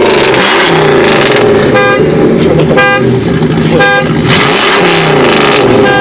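Old pickup truck's engine running with its tailpipe partly stopped by a rag, revved twice so the exhaust gas rushes out with a loud hiss. Three short tones sound about a second apart between the revs.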